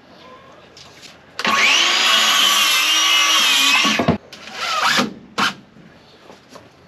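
Power saw cutting through a wooden board for about two and a half seconds, its pitch dipping and recovering under the load, then stopping sharply. Two shorter bursts of the saw follow.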